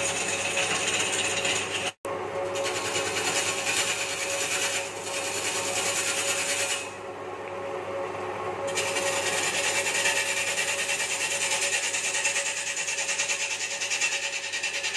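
Wood lathe running with a steady hum while a hand-held gouge shaves a large spinning log blank, giving a continuous rasping cut. The sound breaks off for an instant about two seconds in. A little past the middle the cutting noise falls away for under two seconds, leaving the hum, then comes back.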